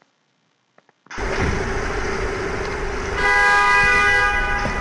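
Near silence, then city street sound with traffic starts suddenly about a second in. From about three seconds in a car horn sounds steadily for about a second and a half over it.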